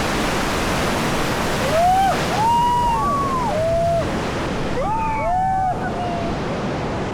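Rushing whitewater in a river rapid, a steady hiss, with high-pitched yells from the rafters in a cluster about two seconds in and again about five seconds in.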